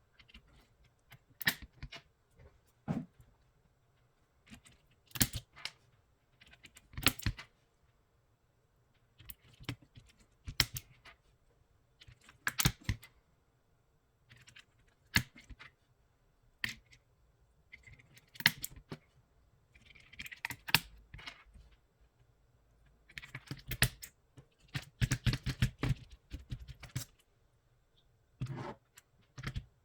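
Keys being typed on an aigo A108 mechanical keyboard fitted with Outemu Peach switches. The presses come irregularly, singly and in short runs, with a quicker stretch of typing about three quarters of the way through.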